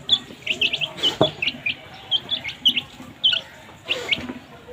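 A group of baby chicks peeping: many short, high calls that drop in pitch, several a second and overlapping, with one sharp knock about a second in.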